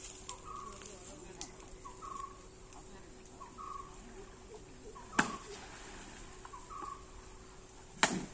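A bird calling with short repeated notes about once a second, with two sharp knocks, one about five seconds in and a louder one near the end.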